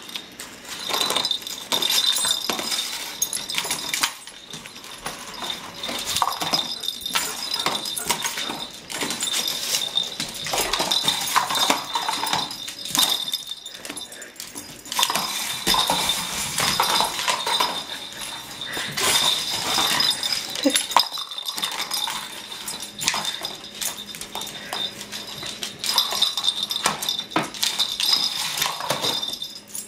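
Plastic cat track-ball toy clattering and rattling as a corgi noses it and shoves it across a wooden floor, with many sharp clicks and knocks in uneven bursts, along with the dog's own noises.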